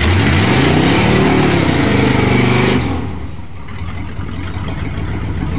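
4x4 pickup truck's engine revving up and falling back as it drives through muddy water, with a heavy rush of splashing. About three seconds in, the splashing stops suddenly as the truck climbs out onto the bank, and the engine drops to a quieter, steadier running.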